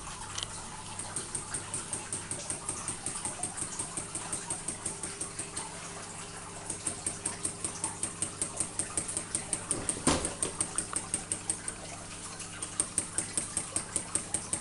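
Small Ringbom Stirling engine running and driving a small LED-loaded generator, with a rapid, even ticking at each stroke over a steady low hum; the ticking weakens briefly twice and picks up again. One sharp thump about ten seconds in.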